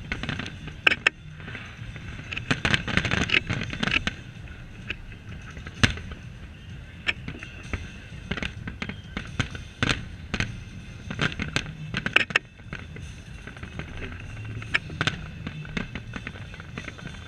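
Fireworks display: aerial shells bursting in many sharp bangs at irregular intervals, with thick clusters of crackling about three seconds in and again about twelve seconds in.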